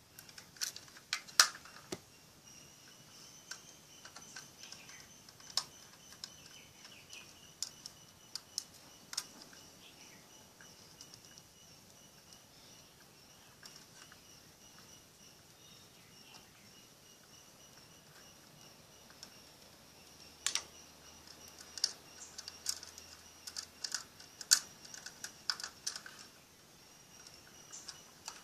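Small plastic clicks and taps from handling a universal phone battery charger's clear plastic contact clip and blue plastic housing, bunched near the start and again from about two-thirds of the way through. A faint steady high whine runs behind them.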